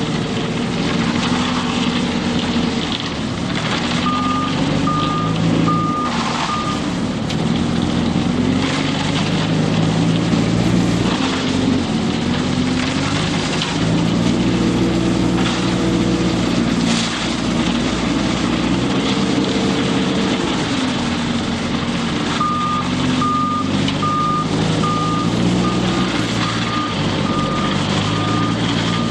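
Diesel engine of a self-loading concrete mixer truck running under changing load, its pitch rising and falling. A reversing alarm beeps a few times a few seconds in, then again steadily through the last several seconds.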